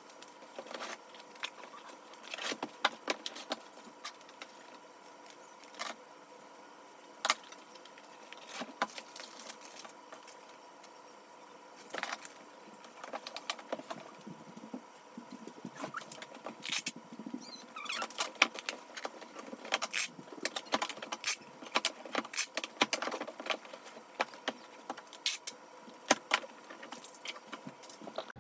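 Packing orders by hand: irregular clicks, taps and rustles of packaging and small items being handled, growing busier in the second half, over a faint steady hum.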